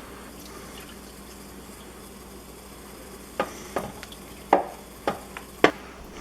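Soapy water running and fizzing in the plastic insect-trap container, a steady hiss, with about five sharp clicks or knocks in the second half.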